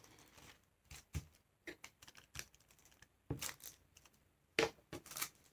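Folded paper pieces rustling and tapping on a wooden tabletop as they are handled and pressed flat, in scattered short bursts with two louder rustles in the second half.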